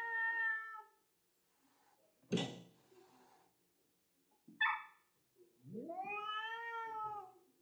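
A cat meowing in long drawn-out calls. One call trails off in the first second, a short one comes about halfway, and a long one rises and then falls near the end. A short harsh noisy burst comes about two seconds in.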